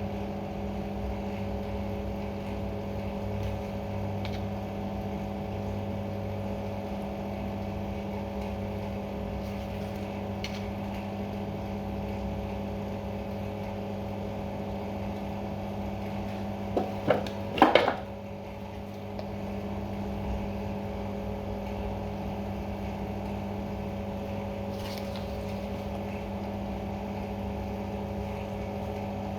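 A steady machine hum with several pitched tones, and a brief cluster of sharp knocks and clatter about two-thirds of the way through.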